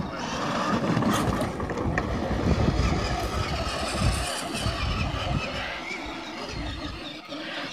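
Children's battery-powered ride-on toy quad driving over grass, its electric motor and gearbox running with an uneven, rough rumble.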